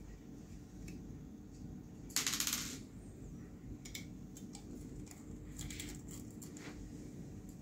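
Light metallic clicks and clinks from handling a RAID controller card by its metal bracket, with one brief rattle about two seconds in.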